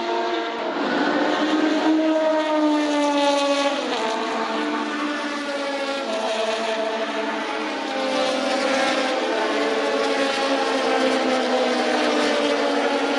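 Vintage Formula 2 racing cars' small four-cylinder engines running at high revs. The engine note climbs, drops sharply about four seconds in, then keeps rising and falling as cars pass.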